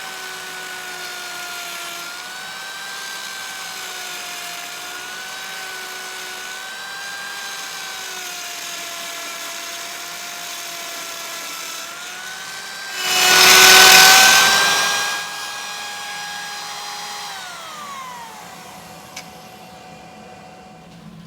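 Trim router running through wood, a steady high whine whose pitch wavers up and down, with a much louder burst of cutting noise about two-thirds of the way through. Near the end the router is switched off and its whine winds down, while the dust collector's blower keeps running.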